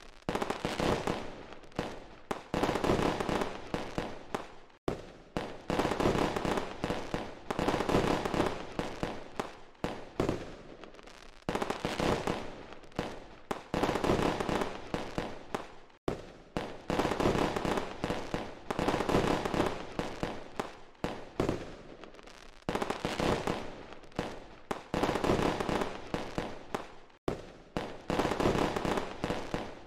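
Fireworks sound effect: a dense, continuous barrage of firework bangs and crackling, many reports in quick succession. The sound cuts out for an instant three times, where the effect is looped.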